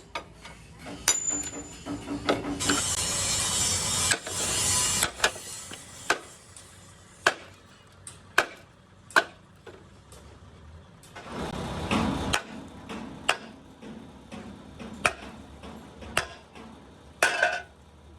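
Workshop sounds: about a dozen sharp, irregularly spaced hammer-like strikes. Near the start there is a hissing noise of about two and a half seconds, and about two-thirds through a shorter, deeper rush of noise.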